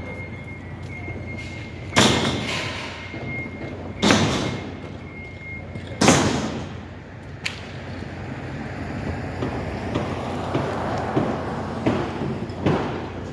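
Heavy construction-site banging: three loud impacts two seconds apart, each ringing out, then a run of lighter knocks near the end, over a steady high-pitched tone that stops after the third bang.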